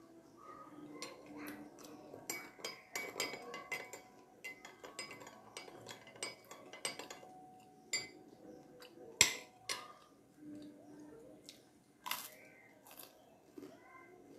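Steel teaspoon clinking against a glass teacup and glass saucer as it is worked in the cup and set back down: a run of light clinks, the sharpest about nine seconds in and another about twelve seconds in.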